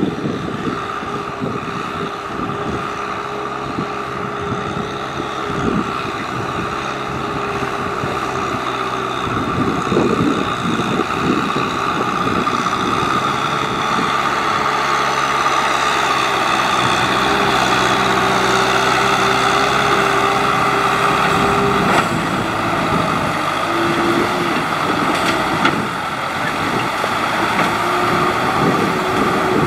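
Tractor's diesel engine running steadily, growing louder about ten seconds in, its pitch dipping and rising slightly a few times.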